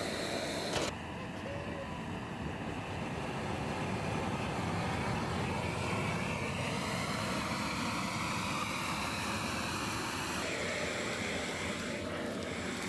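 Propane gas burner of a raku kiln running with a steady rushing noise.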